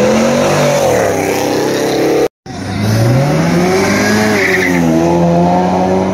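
Two cars pulling away under hard throttle, engines revving: first a black Chevrolet sedan, then, after a short break in the sound about two seconds in, a blue Ford Mustang, whose engine rises in pitch and holds high revs.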